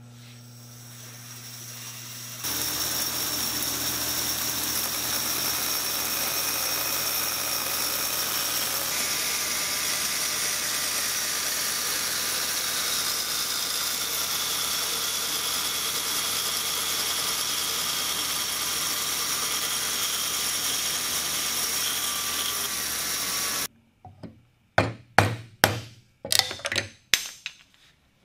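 A 36-inch Oliver bandsaw running steadily while a round wooden throat insert is cut on it. Then the machine sound stops abruptly, and a wooden mallet strikes a chisel in a rapid series of about ten sharp knocks.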